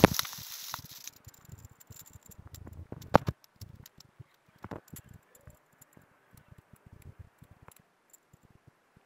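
Faint rustling with scattered small clicks, a sharp knock at the very start and a louder click about three seconds in, fading to near silence near the end.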